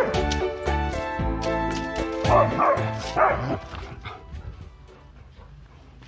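A dog barks about three times, two to three seconds in, over background music that fades out about four seconds in.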